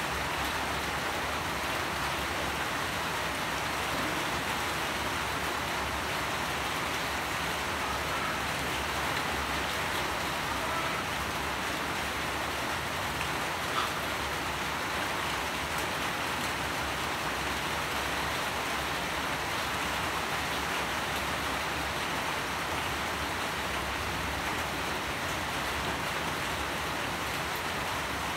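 Steady rain falling, an even, unbroken hiss of drops, with one slightly sharper drop tick about halfway through.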